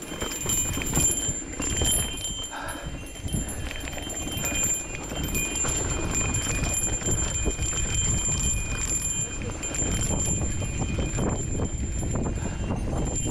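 Mountain bike riding down a dry dirt singletrack: tyres running over loose dirt and the bike rattling and knocking over bumps, with wind rumbling on the microphone.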